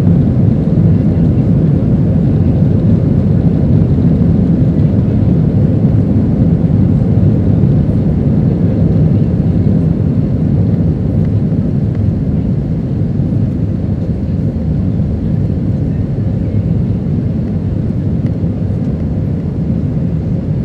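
Steady low rumble of an Airbus A320's IAE V2500 engines and airflow heard inside the passenger cabin at high power, easing slightly in loudness over the second half.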